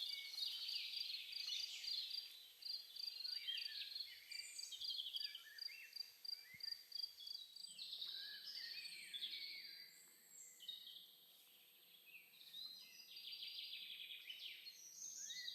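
Several songbirds singing in woodland, overlapping chirping phrases, with one high note repeated evenly about three times a second through the first half. The birds fall quieter for a moment late on, then pick up again.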